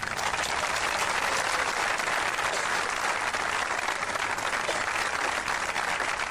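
A crowd applauding, many hands clapping together at a steady level.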